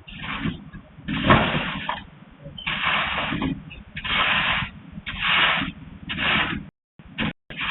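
Repeated scraping strokes, about one a second, each lasting under a second.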